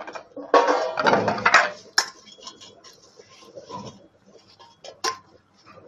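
Stainless-steel steamer plate and spoon being handled: a loud scraping rattle of metal starts about half a second in and lasts a little over a second, followed by a sharp clink about two seconds in and another near the end, with light clattering between.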